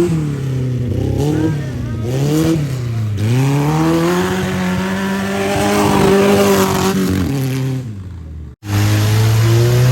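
Off-road race vehicle's engine revving up and down several times, then climbing in one long pull and dropping away. The sound cuts out sharply for a moment and returns with the engine running at a steady pitch.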